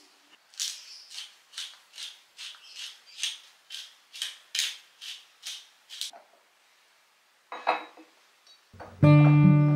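Wooden pepper mill being twisted by hand, about fourteen quick rasping grinds at two to three a second. A short clatter follows, then acoustic guitar music starts near the end and is the loudest sound.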